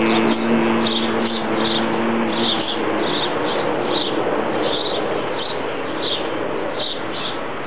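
The last held chord of the backing music dies out about two and a half seconds in. It leaves a steady hiss with short high chirps repeating irregularly, about twice a second.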